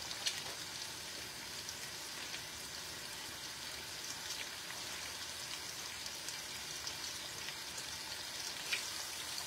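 Chicken strips and sun-dried tomatoes in oil sizzling steadily in a frying pan, with a few scattered pops.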